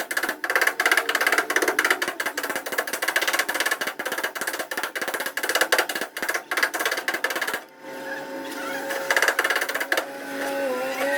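Paintless dent repair tap-down hammering on a car's body panel: quick runs of light taps on sheet metal, several a second, that thin out about eight seconds in. A steady tone can be heard beneath the taps.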